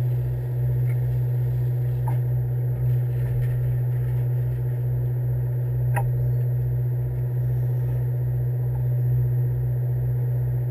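Fishing boat's engine running steadily: a low hum with a slow throbbing beat, and a couple of faint clicks over it.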